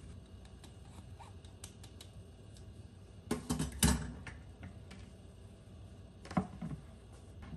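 Scattered light clicks and knocks: a quick cluster of sharper knocks about three and a half seconds in, the loudest, and a couple more about six and a half seconds in.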